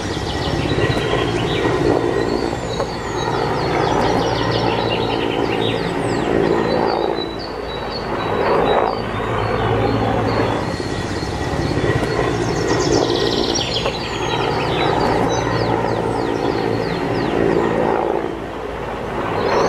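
Birds chirping in quick short notes over a steady low hum that swells and fades every couple of seconds.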